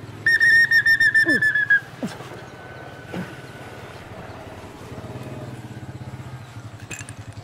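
A pea whistle is blown in one long trilling blast, lasting about a second and a half, which stops about two seconds in. A small motorcycle engine then runs at a low, pulsing idle.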